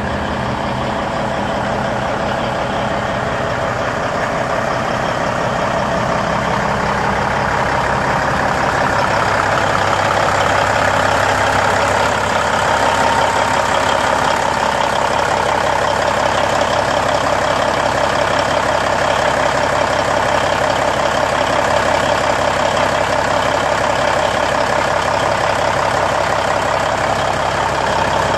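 Freshly rebuilt Cummins N14 inline-six diesel in a 1995 Peterbilt idling steadily, heard close to the open engine bay; the sound grows a little louder about nine seconds in and then holds steady.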